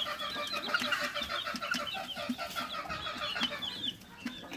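A pen of half-grown gamefowl chicks chirping together: many short, falling peeps overlapping without a break.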